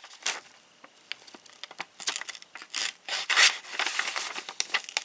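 Folding pocketknife blade slicing through a sheet of paper in a series of short rasping, tearing strokes, from about two seconds in. The factory edge is dull: it cuts, but far from sharp.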